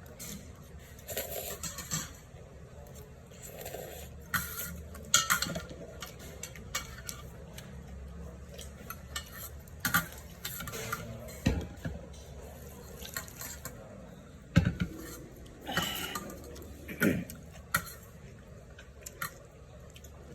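Utensils clinking and tapping against a bowl, with liquid sounds of broth, as someone eats cold chicken noodle soup (chogye guksu). The clicks come irregularly, a few loud ones scattered through.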